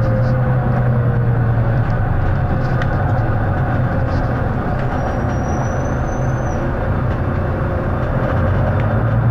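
Volvo B9TL double-decker bus's diesel engine running under way, heard from on board as a steady, loud drone with a low hum that eases slightly and then builds again near the end. A thin high whine sounds for a second or two midway.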